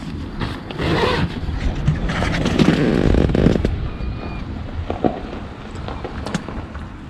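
Nylon tent fabric rustling and crinkling as the tent door is handled and pulled open, in two main bursts with a few sharp clicks later on, over a steady low rumble.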